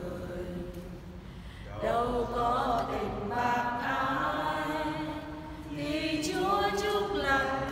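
A small congregation singing a hymn together in a church, voices only. The singing comes in about two seconds in, after a quieter pause, and dips briefly between phrases near the end.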